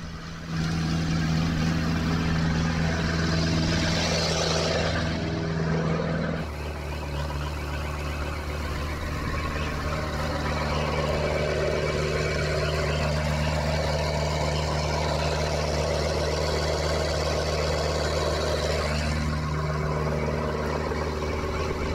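Sherp all-terrain vehicle's diesel engine running steadily as it drives up a grassy slope and passes close by. Its note changes abruptly about six seconds in.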